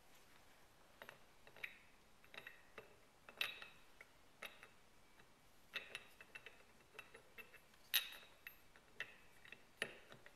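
Faint metal clicks and clinks from the steel parts of a Kitagawa B206 power chuck as they are handled and fitted into the chuck body: about a dozen sharp ticks at irregular intervals, the loudest about eight seconds in.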